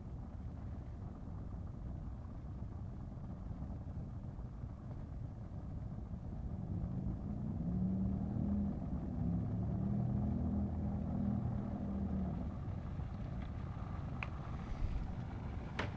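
Steady low rumble of city traffic. A motor vehicle's engine hum swells in about six and a half seconds in, holds for several seconds, and fades out a little after twelve seconds.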